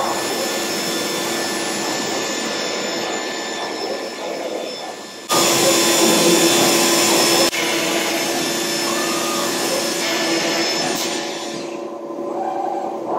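SCM Tech99 CNC router working a panel: a steady machine whir and hiss with a low hum running through it. About five seconds in it turns suddenly louder for some two seconds while a drill bit bores into the board, then drops back.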